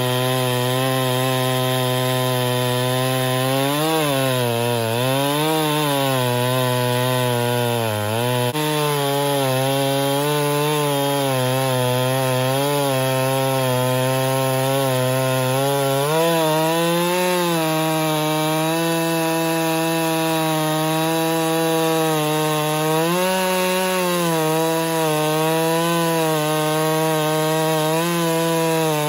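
Chainsaw in an Alaskan chainsaw mill ripping a pine log lengthwise into a slab, its two-stroke engine held at high speed under load throughout. The engine pitch sags and recovers a few times in the first third and lifts briefly twice later on, as the load of the cut changes.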